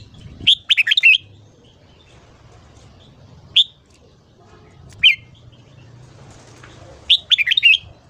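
Red-whiskered bulbul singing: a quick warbling phrase about half a second in, two single sharp notes in the middle, and another quick phrase near the end.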